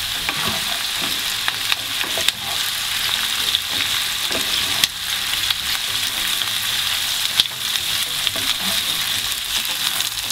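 Sliced zucchini and onion sizzling steadily in hot sunflower oil in a nonstick frying pan on high heat, with scattered sharp ticks of spattering oil and a wooden spatula stirring through the vegetables.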